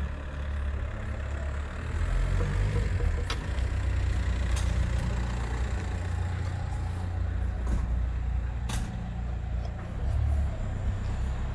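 Low, steady background rumble, with a few brief sharp clicks.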